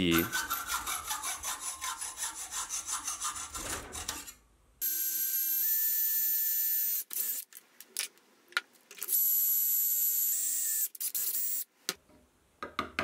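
Rapid metal-on-metal rasping strokes as a steel wall hook held in a vise is cut down. Then an electric hand drill bores into a steel plate: it runs twice for about two seconds each, with a high whine that steps up in pitch, and short clicks come between the runs and near the end.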